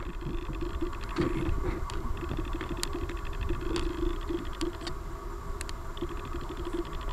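Wind on the microphone: a steady low rumble with gusty swells. A faint, rapid high buzzing starts and stops several times over it.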